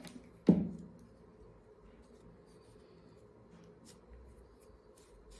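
Faint rustling and small clicks of velvet-paper leaves being handled and pressed between the fingers. About half a second in comes a single dull thump, the loudest sound, like something knocked or set down on the table.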